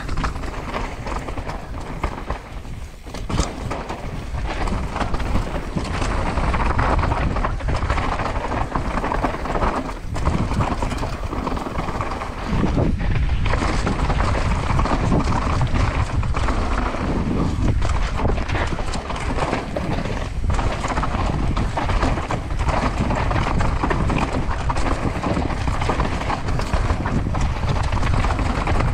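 Downhill mountain bike ridden fast over rough trail: a steady rush of tyres on dirt and rock, with many sharp knocks and rattles from the chain and frame.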